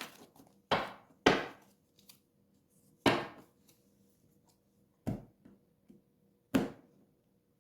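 Five sharp knocks on a wooden surface, spaced irregularly: tarot cards or the deck being struck or set down on a table.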